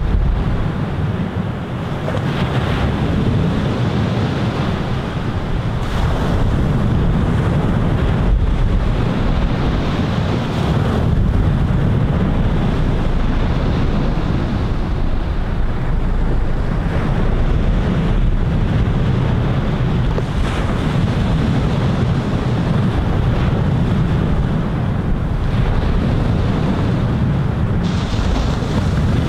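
Ocean surf breaking on a sandy beach and against rocks, a steady wash of waves.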